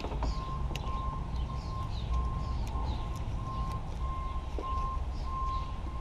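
A steady electronic beeping: one mid-pitched tone repeating about twice a second, over a low rumble.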